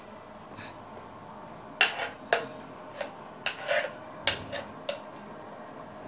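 Metal spoon clinking and scraping against glass bowls as thick semolina idli batter is scooped and poured from one bowl into another. There is a string of separate sharp clinks, starting about two seconds in and coming roughly every half second.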